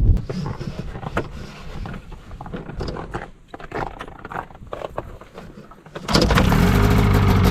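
A few scattered clicks and knocks, then about six seconds in a snowmobile engine catches suddenly and keeps running steadily, loud and with a fast even beat, after its pull cord broke.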